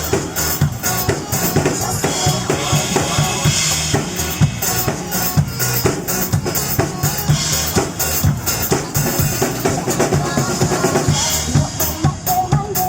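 Drum kit played live over a pop song's backing track: fast kick-drum, snare and rimshot hits in a steady driving rhythm.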